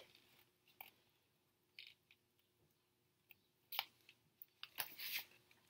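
Near silence, with a few faint, brief rustles and crinkles from the pages of a paperback book being handled and held up open.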